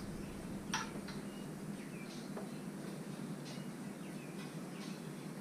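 Faint clicks and short high squeaks of a pick being worked around a stuck radiator hose to break its seal, over a steady low hum.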